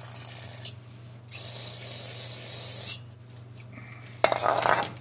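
Aerosol brake cleaner sprayed in hissing bursts onto oily tractor casing to degrease it: a short spray at the start, then a longer, louder one of about a second and a half. Near the end comes a sharp click and a brief, loud burst of noise.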